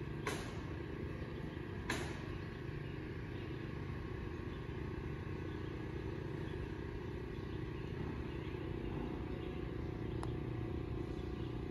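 Two sharp clicks about a second and a half apart, a putter striking a golf ball, over a steady low outdoor rumble.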